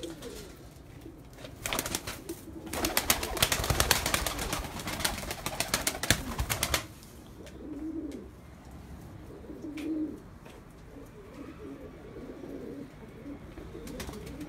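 Domestic pigeon's wings flapping in a rapid run for about five seconds as the bird is flushed into flight, followed by soft, low cooing from pigeons a couple of times.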